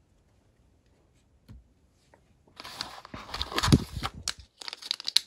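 Quiet at first, then a foil booster pack rustling and scraping as it is pulled out of a cardboard display box, with one soft knock against the box and quick crinkling clicks near the end.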